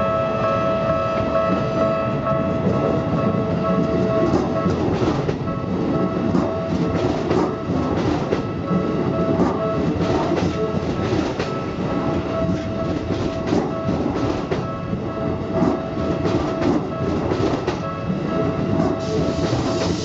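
Keikyu New 1000 series electric train passing close by over a level crossing, its wheels clacking over rail joints under a steady rumble. The crossing's warning bell keeps ringing throughout.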